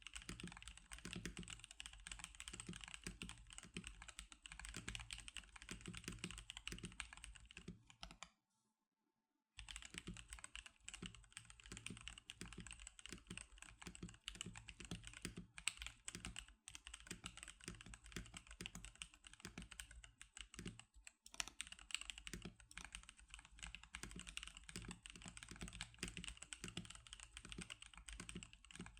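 Continuous fast typing on an NK87 Atomic Purple custom mechanical keyboard with Magic Girl keycaps: a dense run of rapid keystrokes that stops for about a second after eight seconds in, then carries on.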